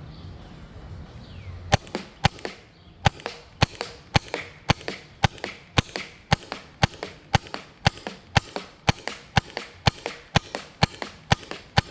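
T15 magfed paintball marker firing a steady string of single shots, about two a second, starting nearly two seconds in. The whole magazine of paint goes through without a ball breaking in the barrel.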